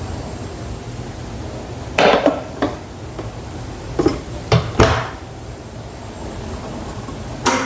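Rice cooker being set up: a string of hard knocks and clatters as the inner pot and lid are handled and the lid is shut, then a last sharp click near the end as cooking is switched on. A steady low hum runs underneath.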